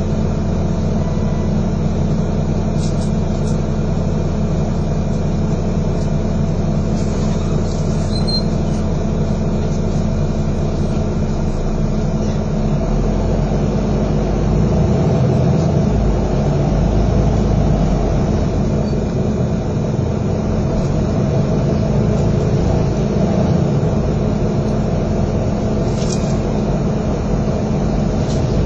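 Engine and road noise heard from inside a moving double-decker bus: a steady low drone that turns rougher about halfway through, with a few faint clicks.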